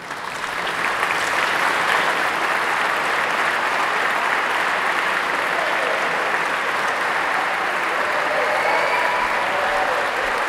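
A large seated audience applauding, rising within the first half second and then holding steady, with faint voices beneath it near the end.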